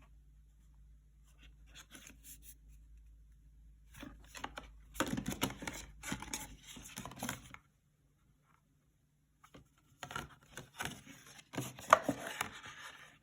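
Packaging being handled and opened: two bouts of close rustling, tearing and clicking, the first about four seconds in and the second near the end, with a quiet gap between.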